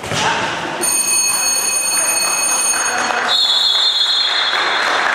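Shrill whistle blown in long, steady blasts, one after another, over voices shouting in a large echoing sports hall, stopping play in a futsal match.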